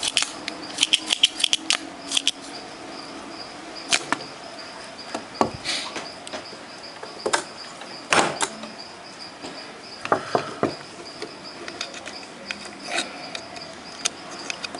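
Handling of an amplifier circuit board: irregular light clicks and taps, some in quick clusters, over a faint steady high-pitched tone.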